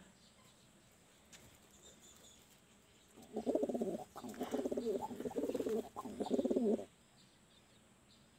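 Domestic pigeon cooing: a run of rolling coos lasting about three and a half seconds, starting about three seconds in, with a brief break near its start.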